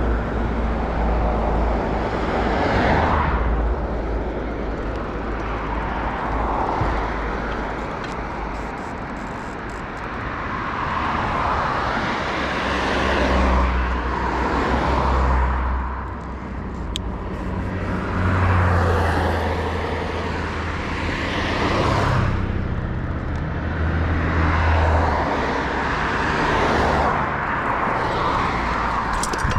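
Wind rumbling on the microphone while cycling, with road traffic passing several times, each vehicle swelling and fading over a few seconds.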